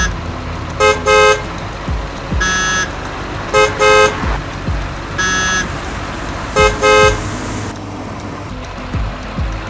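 Animated vehicle horn toots: short double honks about every three seconds, alternating with a single higher-pitched beep, over a low thumping background.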